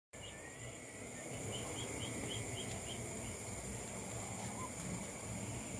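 Night insect chorus: a steady high-pitched drone, with a short run of quick chirps, about four a second, starting about a second in.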